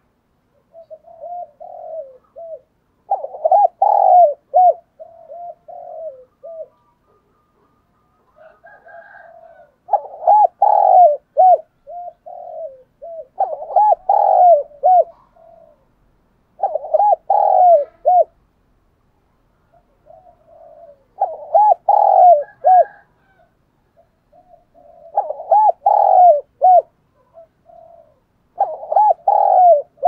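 Spotted dove cooing, phrase after phrase with short gaps of a second or two, each phrase a run of short rounded coos.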